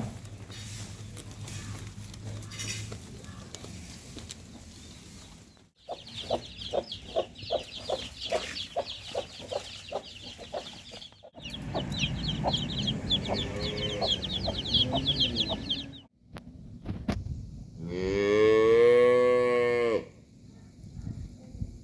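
Farmyard animals in a few short takes: chickens clucking with high chirps, then a cow mooing once, a long call about two seconds long near the end that is the loudest sound.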